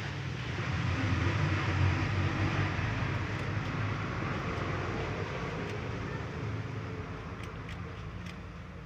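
A low engine-like rumble with a hiss above it, swelling to its loudest a second or two in and then slowly fading away.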